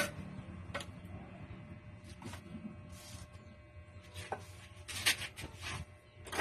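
Hand work in wet cement around a sink opening: a few sharp clicks and short scrapes, with a cluster of scraping about five seconds in, over a low steady hum.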